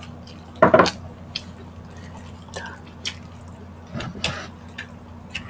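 Sauce poured from a small glass bowl over food, with a brief wet splatter a little under a second in. Scattered small wet clicks and taps follow as fingers pick through the food.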